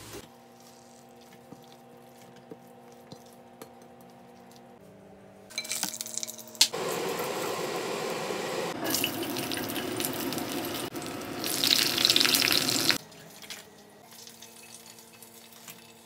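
Dried red chilies sizzling in hot oil in a nonstick frying pan as they are turned with a silicone spatula. The sizzle lasts about six seconds, crackling and getting louder towards its end, then stops abruptly. Just before it starts, the pan and spatula clatter briefly.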